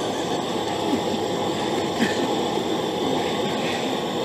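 Coleman camp stove burners hissing steadily under a lidded pot and a camp oven.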